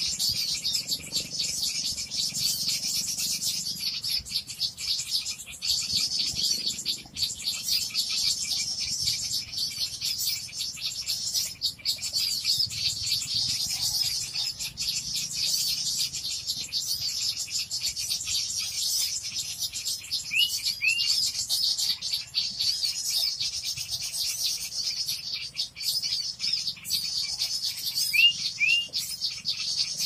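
Bird-lure (pikat) recording of many small birds: a dense, continuous high-pitched chatter of rapid ticks and trills. Two pairs of short rising notes cut through, one about two-thirds of the way in and one near the end.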